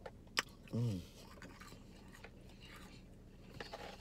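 A person eating french fries: a sharp crisp bite, then a short hummed "mm", then faint chewing.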